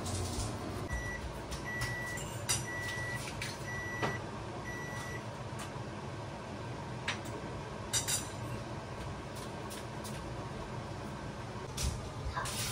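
An appliance's electronic beeper sounds five short, even beeps of one high pitch, about a second apart. Around them come scattered clicks and knocks from kitchen work, over a steady low hum.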